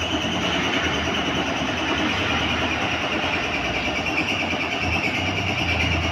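Yamaha Aerox scooter's single-cylinder engine idling steadily, with an even low hum.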